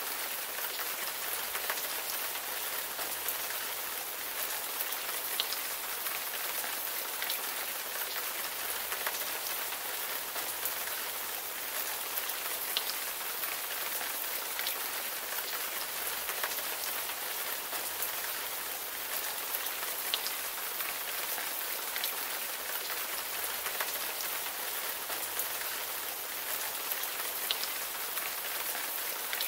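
Steady rain falling, an even hiss with scattered individual drop ticks.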